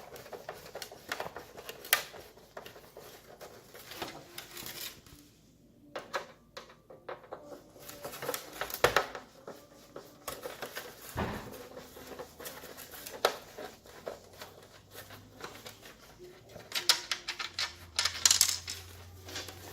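Irregular small clicks, taps and clatter of hands working on a plastic headlight assembly, taking out its small bezel screws. There is a quick run of clicks near the end.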